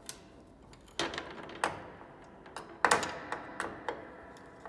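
A tuning hammer clicks and knocks on the tuning pins of an antique Erard piano as the pins are turned to loosen the bass strings. About eight sharp clicks come at uneven intervals, each with a short ring, the loudest about three seconds in.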